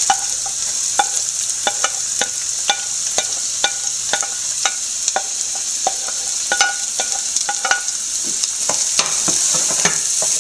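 Hot oil sizzling in a frying pan as chopped ginger and carrot go in, with many sharp clicks, about two a second, as a wooden spatula scrapes and taps against the plate and pan. Near the end the vegetables are stirred in the oil.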